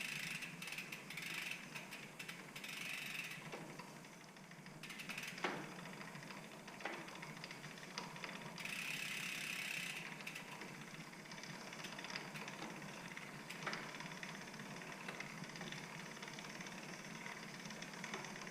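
Bicycle drivetrain turned by hand: the rear freewheel ratchet clicks and the chain runs while excess lubricant is wiped off the chain, with a few sharper knocks.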